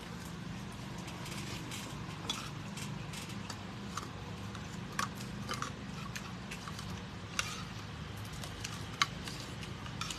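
Spoons and fingers clinking against ceramic bowls and plates while eating: scattered light clicks and taps, the sharpest about nine seconds in, over a steady low hum.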